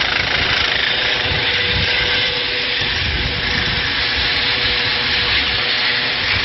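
Eurocopter EC135 air-ambulance helicopter flying overhead: a steady rushing roar from its turbines and rotor, with a faint held tone and an uneven low rumble beneath.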